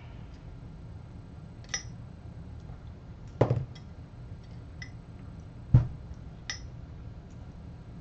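The coffee grinder's electric motor and metal hand tools being handled on a workbench: a few light metallic clicks and two heavy knocks, about three and a half and six seconds in.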